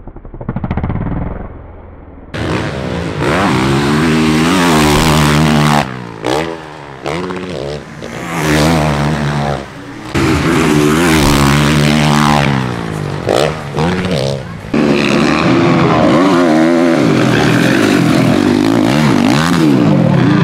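Motocross dirt bike engines revving hard, the pitch climbing and dropping again and again as the throttle is opened and closed, with abrupt breaks between passes. The last few seconds hold a steady high rev.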